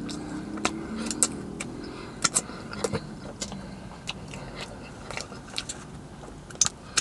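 Close-up mouth sounds of a person chewing a soft glazed Twix doughnut: scattered wet clicks and smacks at irregular intervals, over a faint low steady hum.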